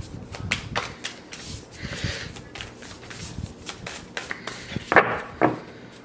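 A deck of tarot cards being shuffled overhand in the hands. Cards flick and slap against each other in quick, uneven runs of clicks, with two louder bursts about five seconds in.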